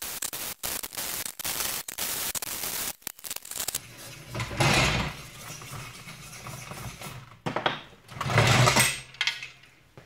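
Electric arc welding crackling and sputtering, broken by brief stops, for about the first three seconds. Then come two shorter, louder bursts of noise, about four and a half and eight and a half seconds in.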